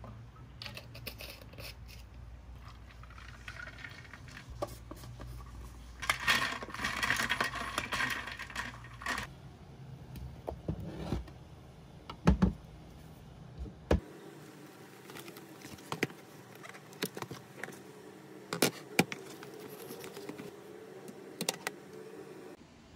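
Handling sounds: a syrup bottle and a plastic drinks tumbler, with a few seconds of louder rustling and clattering about six seconds in. Then sharp clicks and light knocks as a metal laptop stand and a keyboard are set down on a wooden desk.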